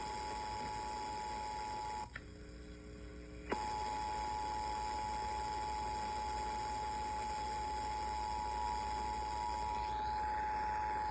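Emergency Alert System two-tone attention signal, a steady tone just under 1 kHz that drops out about two seconds in, leaving a faint low hum for a second and a half, then resumes to the end.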